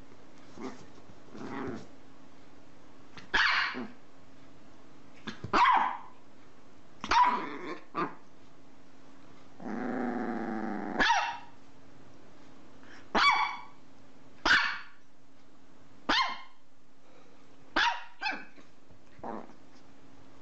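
Chihuahua barking in about ten short, sharp yaps spaced a second or two apart, with a growl of about a second running straight into a bark around the middle.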